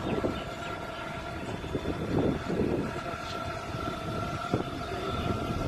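Small abra water taxi's motor running steadily under way, with a constant hum and a thin steady whine over the low rumble.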